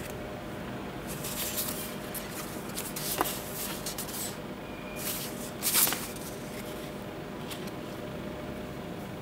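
Printed paper cards and leaflets rustling and sliding against one another as they are leafed through by hand, in a few short bursts between about one and six seconds in, the loudest near six seconds. A steady low hum runs underneath.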